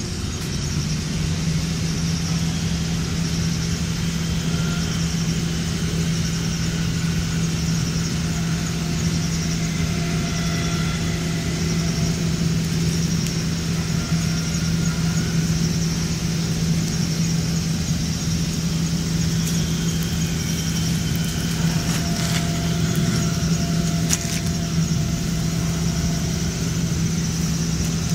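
Steady low hum of an idling engine, setting in about half a second in and holding unchanged.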